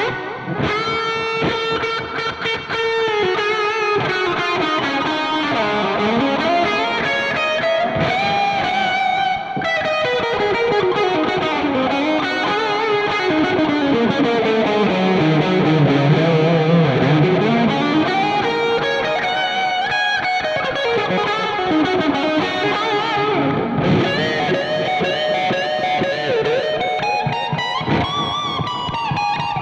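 Electric guitar playing a lead solo through a NUX Cerberus multi-effects pedal's delay, set heavy and washy so that long echo tails hang behind the notes. Sustained notes with bends and vibrato, and runs up and down the neck.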